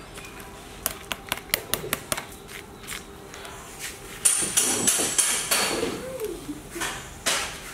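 A metal spoon clicking rapidly against a plastic colander and pot rim as bean sprouts are knocked into a pot, then a metal ladle stirring the sprouts in the steaming pot, clinking against its side.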